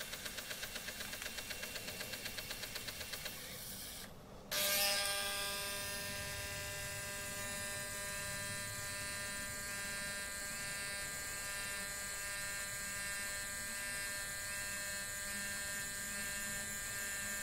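DeLonghi Lattissima Touch capsule coffee machine making a latte macchiato. It gives a fast pulsing hum while frothing and dispensing milk, goes briefly quiet about four seconds in, then its vibratory pump buzzes steadily as the espresso runs into the glass.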